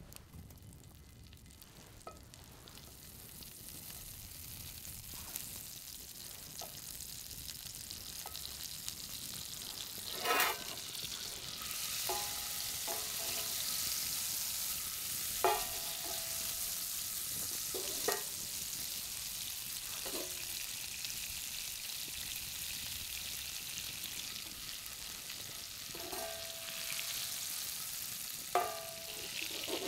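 Butter sizzling and frying in caramelized sugar in a steel frying pan. The sizzle builds over the first few seconds and then holds steady, with a handful of sharp metallic clinks that ring briefly.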